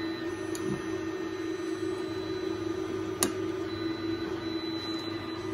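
A crocodile clip snapping onto the end rod of a home-made variable capacitor, one sharp click about three seconds in, over a steady low hum.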